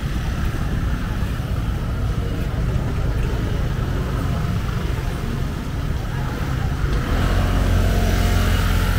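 Busy street ambience with a steady low rumble of traffic. A motor vehicle's engine hums louder from about seven seconds in.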